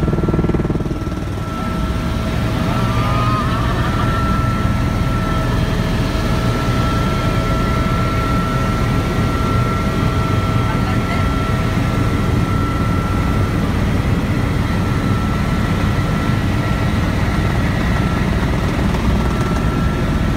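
Helicopter engine and rotor noise heard inside the cabin in flight: a loud, steady din with a steady high whine running through it.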